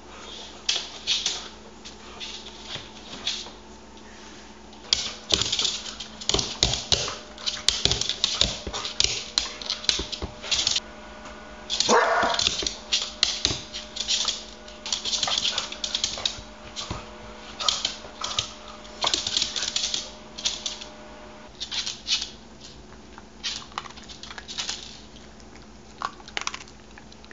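Welsh corgi eating dry kibble from a bowl: quick, irregular bursts of clicking and rattling as the kibble knocks about in the bowl, with one louder clatter about twelve seconds in.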